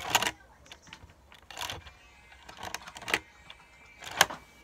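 LEGO bricks of a hand-built Kamen Rider Force Riser belt clacking and rattling as its moving part is worked by hand: about four short plastic clacks spread over a few seconds.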